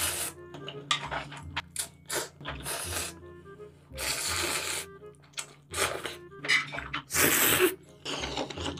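Close-miked slurping of instant ramen noodles and broth, several short slurps and one longer one near the end, with small clicks between them, over steady background music.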